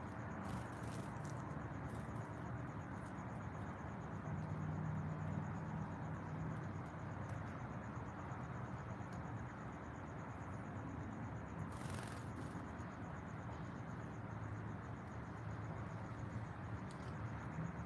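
Outdoor ambience: an insect trills steadily in a high, fast-pulsing tone over a low, steady rumble. A brief rustle of noise comes about twelve seconds in.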